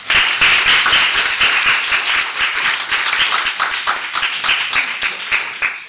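Audience applause: many people clapping densely and steadily, thinning slightly near the end.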